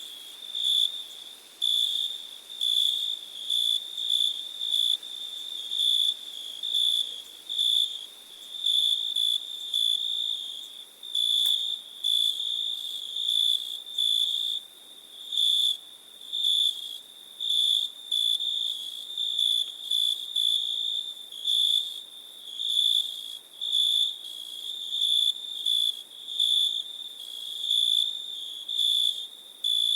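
Crickets chirping on a summer night: a high-pitched trill that swells in repeated pulses about once a second.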